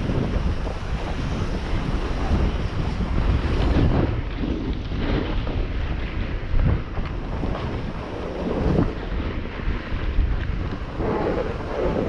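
Wind rushing and buffeting over a skier's camera microphone during a fast downhill run, with skis scraping over hard-packed snow. The rush swells and fades as the skier turns.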